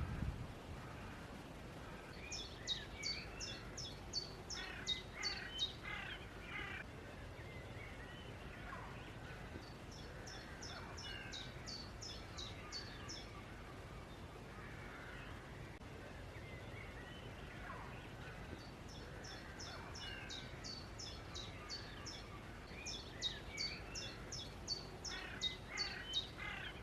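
Wild birds singing: several runs of quick, high, repeated notes, each lasting a few seconds, with scattered lower chirps between them over faint background hiss.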